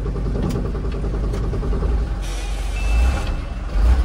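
Mitsubishi Canter dump truck's diesel engine running, heard inside the cab as a steady low rumble. About halfway through a hiss comes in with a brief high tone, and the engine swells louder twice near the end.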